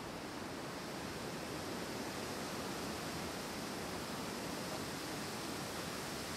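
Wind blowing through forest trees: a steady rushing of the canopy, growing slightly louder about a second in.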